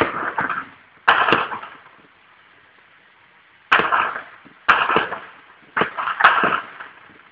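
Gunfire: about six sharp shots, some in quick pairs, spread over several seconds, each followed by an echo that dies away within about half a second.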